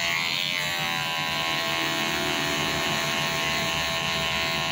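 Cordless electric hair clipper running with a steady buzz as its blade trims short faded hair around the ear and sideburn.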